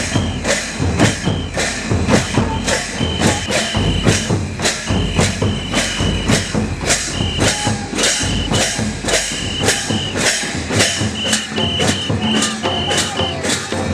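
Live Santal folk drumming: barrel-shaped hand drums and jingling percussion keep a steady, fast beat of about three strokes a second for a stick dance, with a short high note repeated over it in a pattern.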